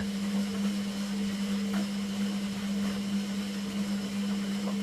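Indesit 860B washing machine running with a steady, even hum.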